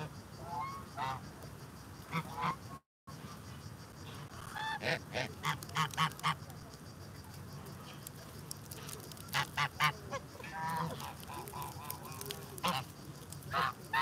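Geese honking: short repeated honks in clusters, a run of about six a little before halfway, another run of four about two-thirds through, and scattered single honks in between.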